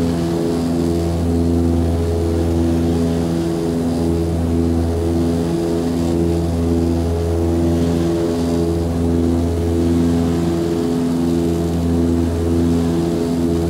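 Cabin drone of an Antonov An-24RV's twin Ivchenko AI-24 turboprop engines and propellers running steadily, a deep hum with a regular pulsing throb roughly once a second.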